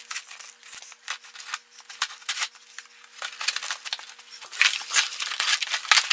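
Dull old knife blade scraping and slicing through clear packing tape on the edge of a cardboard box: a run of short, irregular scratches and clicks, busier near the end.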